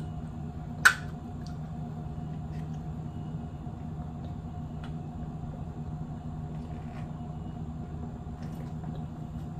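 Aluminium soda can snapped open by its pull tab, a single sharp crack about a second in. After it, only a steady low hum with a few faint small clicks.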